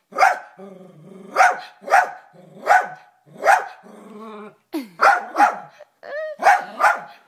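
Dachshund barking excitedly in a rapid, irregular series of about ten sharp barks, with low growls between them.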